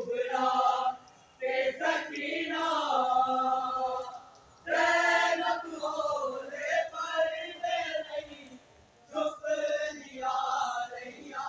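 Unaccompanied devotional chanting: a voice singing long, held melodic phrases with short pauses between them.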